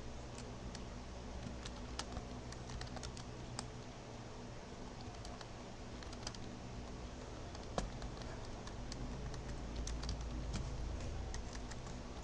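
Typing on a computer keyboard: irregular, faint key clicks over a steady low hum.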